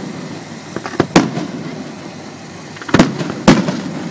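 Aerial firework shells by Pirotecnica Scarsella bursting overhead: a loud bang about a second in, then two more half a second apart near the end, each trailing off in an echo, over steady background noise.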